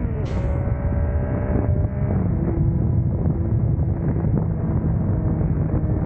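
Yamaha three-cylinder motorcycle engine at highway speed under heavy wind buffeting on the microphone. The engine note drops at the start as it shifts up, then holds fairly steady while cruising, with a brief hiss just after the shift.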